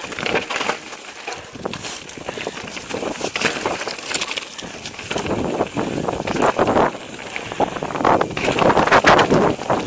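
Mountain bike rolling over a rocky, loose-stone trail: tyres crunching on stones with frequent clicks and rattles, plus wind on the microphone. It gets louder about halfway through as the bike picks up speed over rougher ground.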